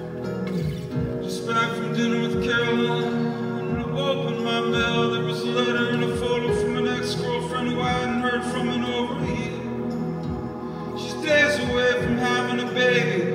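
Acoustic guitar played live in an instrumental passage: plucked notes ringing over held tones, growing louder near the end.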